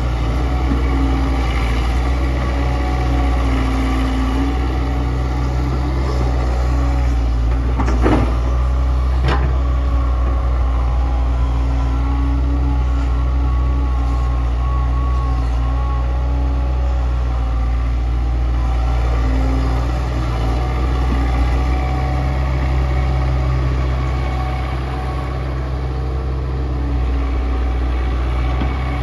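Kobelco SK100-1 excavator's diesel engine running steadily while it works, with two sharp knocks about a second apart some eight seconds in.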